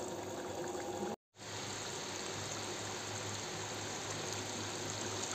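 Chicken curry cooking down in oil and gravy in a wok, a steady sizzling hiss, broken by a moment of silence about a second in.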